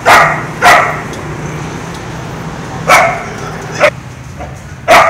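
Dog barking: five short, sharp barks, two close together at the start, two more about three to four seconds in, and one near the end.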